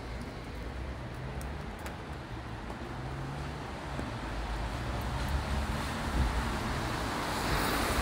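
Steady rumble and hiss of road traffic, growing louder toward the end.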